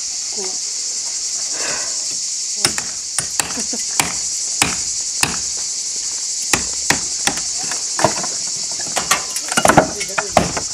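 Steady, shrill insect chorus throughout. Over it come sharp, irregular hammer blows on concrete, starting a few seconds in and coming faster near the end: the men are knocking off concrete on a block wall that has not held.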